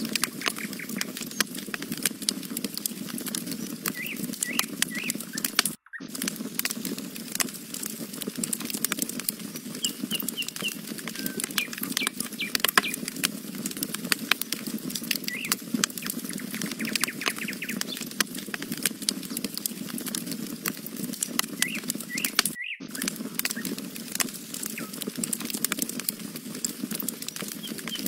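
Wood campfire crackling, with dense sharp pops and snaps over a steady low rush of burning, and short bird chirps now and then. The sound drops out for an instant twice, about six seconds in and again later.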